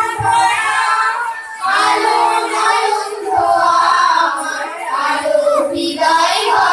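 Young girls singing together, high child voices holding and bending notes in a song.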